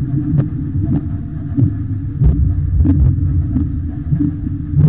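Wind and water noise rumbling on a helmet camera's microphone aboard a Flying Junior sailing dinghy under way, broken by irregular sharp clicks and knocks.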